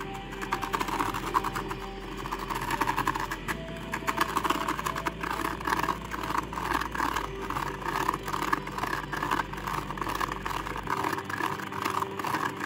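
Kinetic sand table running: its small yellow 3-volt gear motor whirs while the magnet-dragged steel ball rolls and scrapes through the sand on the plastic bed, giving a steady whir with dense, rapid rattling. The ball rubbing on the plastic and sand makes more of the noise than the motor.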